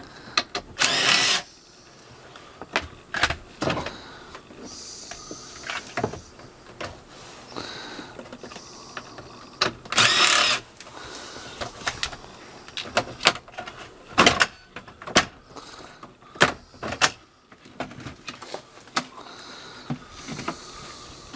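Cordless electric impact driver running in two short bursts, about a second in and again about ten seconds in, backing out the screws that hold the plastic lower dash cover under a Ford F-150's steering column. Between the bursts come clicks and knocks of the plastic trim and tools being handled.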